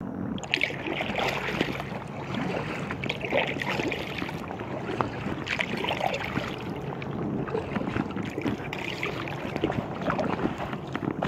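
Choppy lake water splashing and slapping against an inflatable kayak's hull in irregular little knocks and swishes, with wind noise on the microphone.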